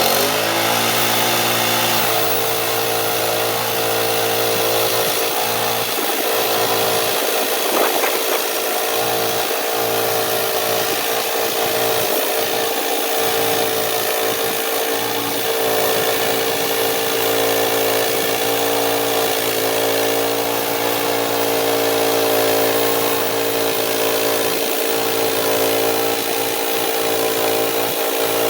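Frontier OS27 portable bandsaw mill running: its gas engine revs up in the first second, then holds a steady high speed as the band blade saws through a red oak log.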